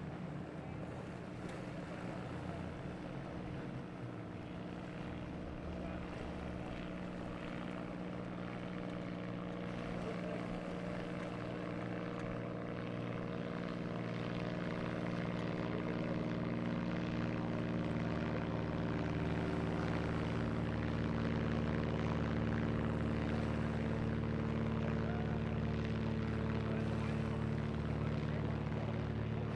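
Boat engines running at low speed, a steady multi-toned drone that slowly grows louder as a boat draws near.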